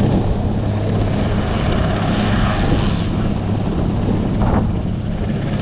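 Sikorsky S-61 helicopter running on the ground, its twin turboshaft engines and rotor giving a steady, even hum.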